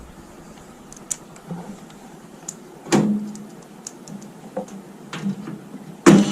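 Scattered light clicks and knocks of tools and parts being handled during repair work, with a louder knock about three seconds in. A short, loud burst of noise starts near the end.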